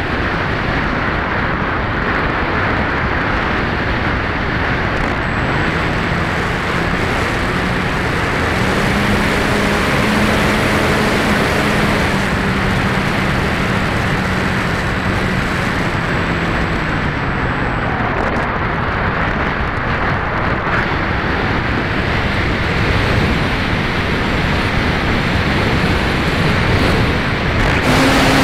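Steady rush of airflow over the onboard camera of a Max-Thrust Lightning 1500 electric RC glider in flight. The electric motor and propeller hum comes in faintly about five seconds in, rises a little in pitch, and fades out after the middle.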